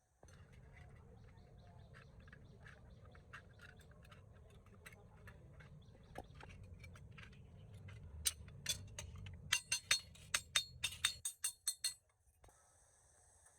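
A low rumble under a run of sharp clicks and taps. The clicks grow louder and come faster over the last few seconds, then stop abruptly.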